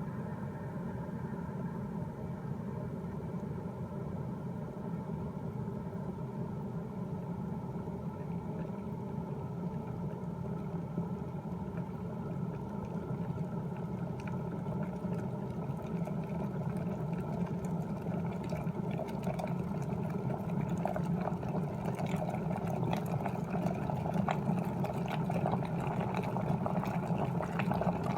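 Electric kettle heating water close to the boil: a steady rumble, with bubbling and crackling that builds through the second half and grows louder toward the end as the water comes to a full boil.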